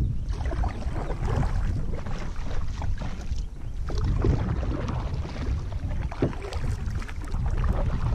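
Kayak paddle strokes: the blades dip and splash in the water, coming in uneven runs, over a steady low wind rumble on the microphone.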